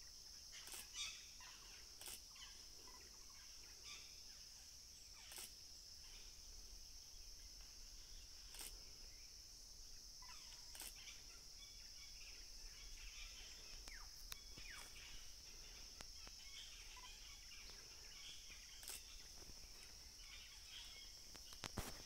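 Faint forest ambience: a steady high-pitched insect drone, with scattered clicks and a few short bird calls.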